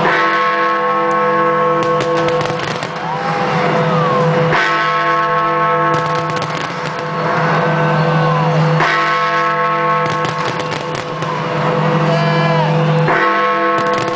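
Big Ben, the great hour bell of the Palace of Westminster clock tower, striking the midnight hour: four deep strokes about four seconds apart, each ringing on and slowly dying away, over a crowd's shouts and cheers.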